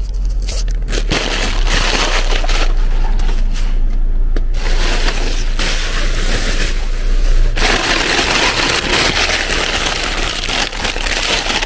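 Plastic garbage bags and loose rubbish rustling and crackling as hands rummage through a waste bin, over a steady low rumble. The crackling grows denser about two-thirds of the way in.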